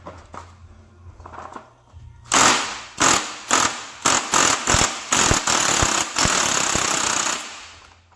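Power impact wrench run in short trigger bursts about half a second apart, then held for about a second and a half, on a transmission fastener that keeps spinning rather than coming off.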